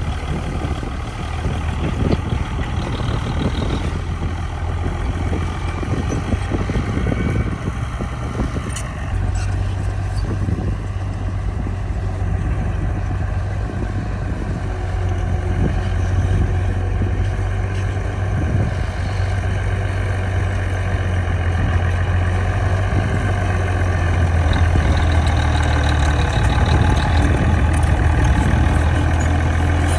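Heavy diesel engine of earthmoving machinery running steadily under work. Its low hum steps up about nine seconds in, and the sound grows louder near the end.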